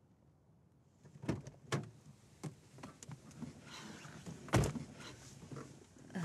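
Car door opening with two sharp clicks, then rustling as someone climbs into the passenger seat, and the door shut with a thud about four and a half seconds in.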